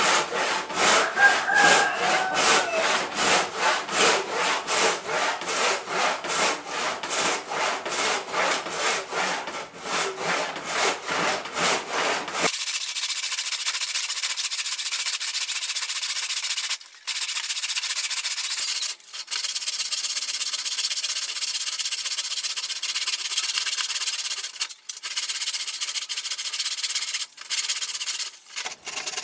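A hand rip saw with coarse, four-teeth-per-inch teeth, freshly sharpened and set, cutting lengthwise through thick mahogany in rhythmic strokes, about three a second. About halfway through, the sound changes abruptly to a thinner, more continuous rasping with a few brief breaks.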